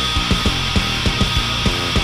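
Black metal music: a dense wash of distorted guitars over bass and drums, with low drum hits about four to five times a second.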